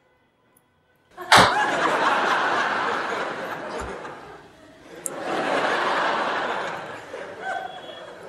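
Crowd laughter in two swells. The first starts suddenly with a sharp click about a second in; after a brief lull the second fades out near the end.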